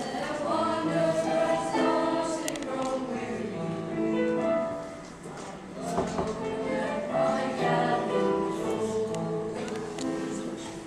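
School choir of children and teenagers singing together in held, sustained notes, with a short break between phrases about five seconds in.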